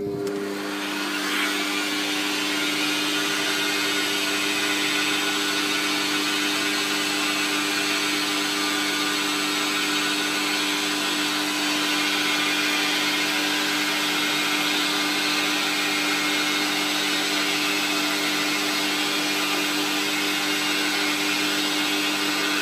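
Metal lathe running steadily, a constant machine hum with several whining tones, while a boring bar cuts a 30-degree chamfer into a billet aluminium part.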